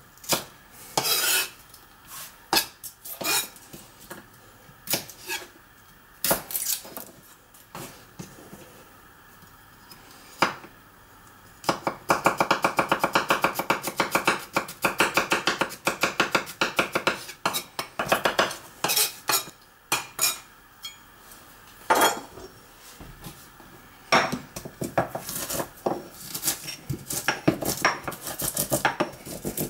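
Kitchen utensils knocking, clinking and scraping against dishes and a board while food is prepared. About midway there is a run of fast, even strokes lasting some six seconds; scattered knocks fill the rest.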